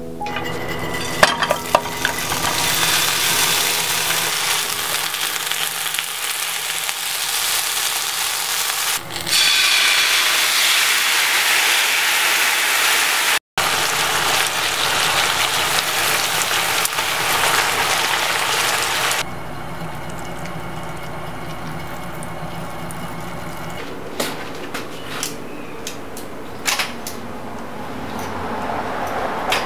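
Sliced lotus root sizzling in hot oil in a frying pan while wooden chopsticks turn it, a steady hiss with a few clicks. The sizzle drops to a quieter level about two-thirds of the way in.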